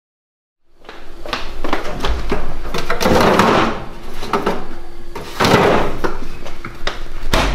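Upright freezer's drawer being pulled open and pushed shut, with sliding rushes, clicks and knocks of handling as a phone is lifted out, over a faint steady hum. A sharp knock near the end.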